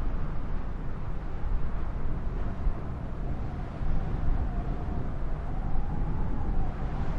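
Jet airliner engine noise with a faint whine that rises slightly partway through, under a heavy low rumble of storm wind buffeting the microphone.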